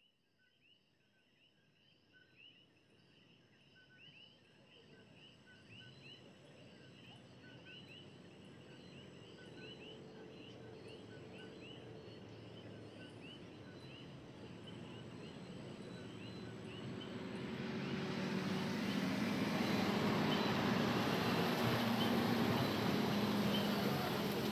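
Night chorus of coquí frogs and insects fading in from silence, the frogs' two-note calls repeating steadily. In the last several seconds a car approaches, its engine and tyre noise swelling to drown them out.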